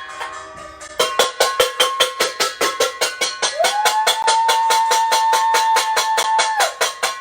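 Rapid metallic clanging, about six strikes a second, each ringing on, as a hand-struck bell or noisemaker is beaten without pause. Partway through a horn sounds one long blast for about three seconds, rising in pitch at the start and then holding steady.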